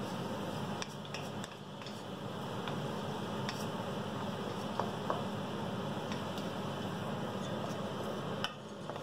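Shrimp, peas, carrots and ham cubes sizzling in a steel wok as a wooden spatula stirs and scrapes them, with scattered clicks and knocks of the spatula against the metal. The sizzle briefly drops near the end, with a sharper knock as the wok is lifted off the heat.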